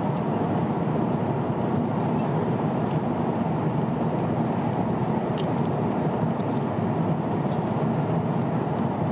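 Steady cabin noise of a jet airliner in cruise flight: the even rush of engines and airflow. A single light click about halfway through.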